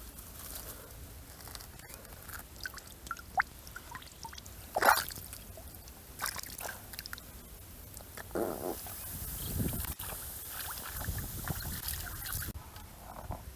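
Water sloshing and trickling with small splashes and scattered clicks, with one sharper knock about five seconds in.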